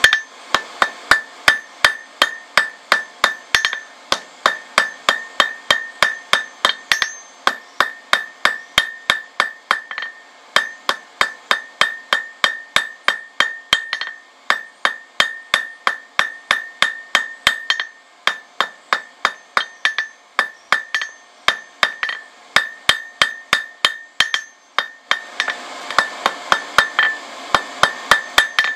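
A hand hammer strikes red-hot rebar on a steel anvil about three times a second, each blow ringing, with short pauses every few seconds. The bar is being drawn out square to a point.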